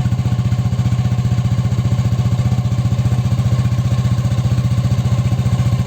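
Yamaha NMAX V2 scooter's single-cylinder four-stroke engine idling steadily through a TSMP aftermarket exhaust pipe, a loud, even, fast-pulsing exhaust note.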